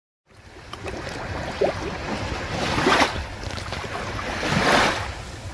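Sea waves washing in on the shore at high tide, swelling twice, about halfway through and near the end, over a steady rumble of wind on the microphone. The sound fades in after a brief silence at the start.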